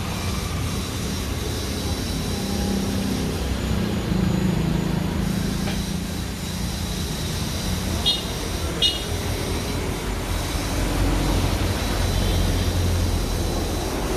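Steady low rumble of a running motor vehicle engine with road noise, and two short high squeaks a little over halfway through.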